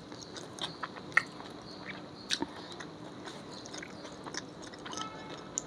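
Scattered light clicks and small scrapes of eating close to the microphone: food being handled and chewed.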